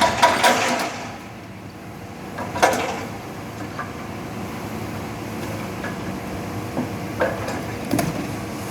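Demolition noise: a burst of clattering crashes of falling debris in the first second, then a steady engine hum from heavy machinery with a few sharp knocks of breaking material.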